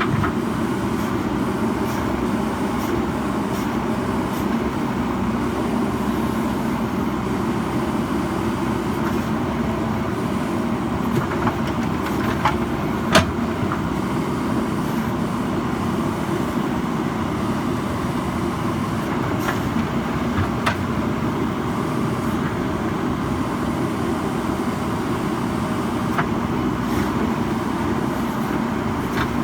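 JCB backhoe loader's diesel engine running steadily under work, with a few sharp metallic knocks, the loudest near the middle.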